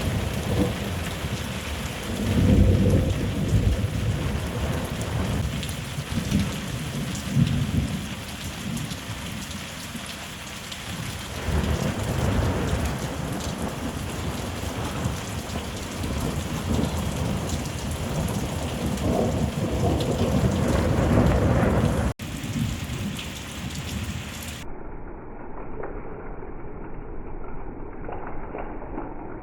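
Thunderstorm: steady heavy rain pouring down, with thunder rolling and rumbling several times, the loudest rolls a few seconds in and again about two thirds through.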